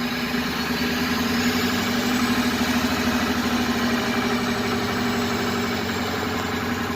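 Warmed-up flatbed truck engine running steadily just above idle. It runs with a misfire that the owner finds worst at around 800 to 900 rpm.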